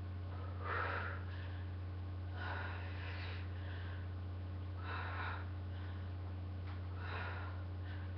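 A woman breathing with exercise exertion: about four audible breaths, roughly two seconds apart, over a steady low electrical hum.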